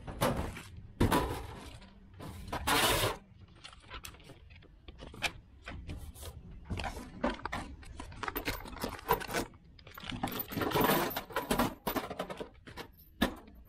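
Small metal tie rod parts (heim joints, spacers, adapters) clinking and scraping on a metal workbench, with plastic parts bags rustling, in quick irregular handling noises.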